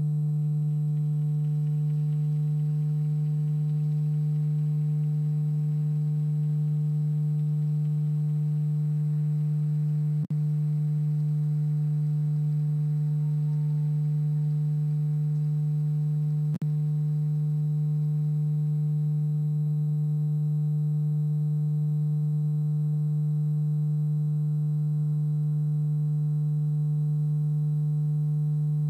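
Loud, steady low electrical hum with a stack of overtones, unbroken except for two brief dropouts, about ten and sixteen seconds in.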